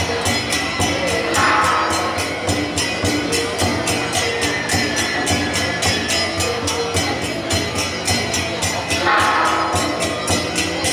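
Loud festival music with a fast, steady percussion beat of about four strokes a second over sustained pitched notes.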